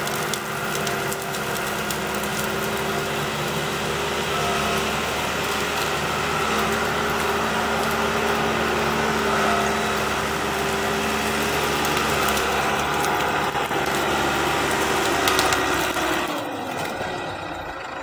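Engine of an off-road tree-trimming machine running steadily under load, with a held whine over it, then easing off about a second and a half before the end.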